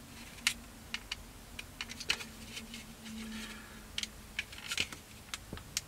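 Irregular light clicks and taps of small plastic model parts being handled on a workbench, over a faint steady hum.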